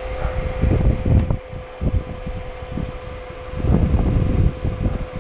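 Wind buffeting a GoPro's microphone in irregular gusts of rumble, over a steady high hum, with a small click a little after a second in.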